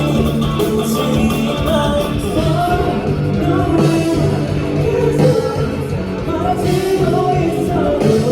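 Rock band music with a singer's voice over a steady bass line.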